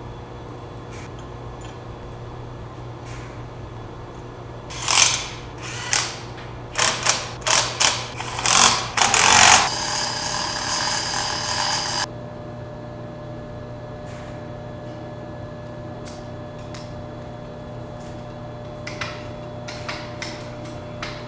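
Steel chains and hoist hardware clanking in a string of loud metallic knocks, then a steady mechanical whir for about two seconds that cuts off suddenly; a few faint clicks near the end.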